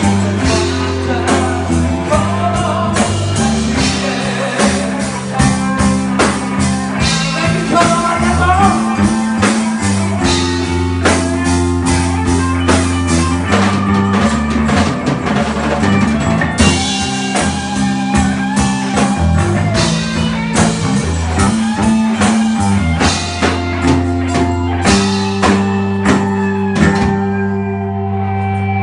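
Live rock band playing a slow ballad: bass, drum kit, acoustic and electric guitars. Near the end the drum hits die away under a held chord.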